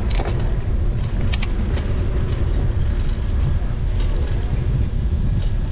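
Wind buffeting the microphone of a bicycle-mounted action camera as it rides along, a steady low rumble, with a few sharp clicks from the ride.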